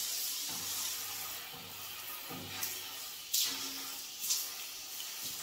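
Water spraying from a handheld shower head, a steady hiss as the shower is rinsed down, with two brief louder hits about three and four seconds in.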